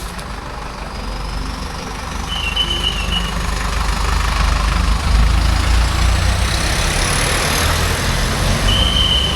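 Large tour bus's diesel engine rumbling, growing steadily louder as it comes closer, under a steady hiss. Two short high single-pitched tones, one about two seconds in and one near the end.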